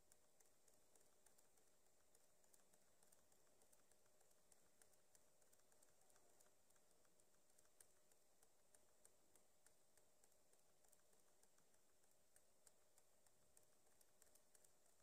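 Near silence: faint room hiss with many light, irregular clicks, typical of a computer mouse or keyboard in use.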